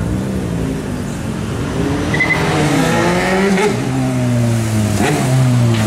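Sport motorcycle engine revving as it rides away. The engine note climbs about halfway through, then falls slowly near the end.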